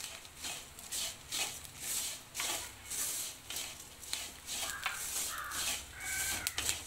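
Wooden spatula stirring and scraping grated coconut and curry leaves as they fry in a stainless steel kadai, in strokes about twice a second. A few short high calls sound in the background near the end.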